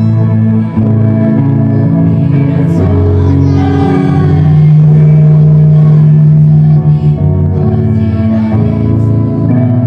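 Loud music with long held notes that change every second or so, without a break.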